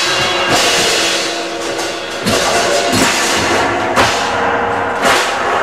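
Electric guitar played loud through a small 15-watt Crate amp, with a cymbal struck several times at irregular intervals.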